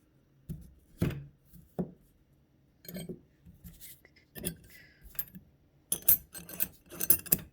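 Steel gearbox parts (gears, synchro rings, bearing race) being handled and set down on a bench, giving a series of separate clinks and knocks, with a quicker run of clinking near the end.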